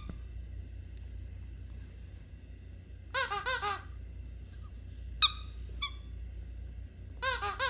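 Rubber squeaky dog toy squeaking as a dog bites down on it. There is a quick run of about four squeaks about three seconds in, two single squeaks a few seconds later, and another run of squeaks near the end. A low steady hum runs underneath.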